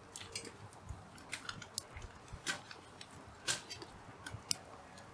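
Hardwood firewood burning in a small campfire, crackling with sharp, irregular pops and snaps.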